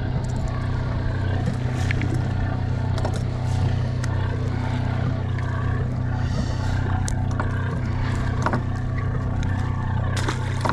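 Fishing boat's engine running steadily as a low, even hum, with a few scattered clicks and knocks of handling on deck.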